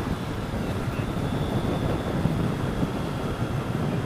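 Motorcycle riding along at a steady speed: the engine running with wind rushing over the helmet-mounted microphone.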